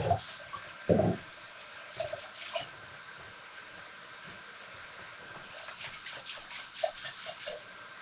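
Kitchen faucet running into the sink, filling it: a steady hiss of running water with scattered small splashes and clicks. Two loud dull thumps come in the first second or so.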